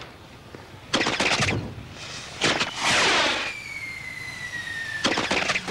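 Fireworks going off: several sudden noisy bursts, and a rocket whistling in flight with a tone that slowly falls in pitch over about two seconds before a last burst near the end.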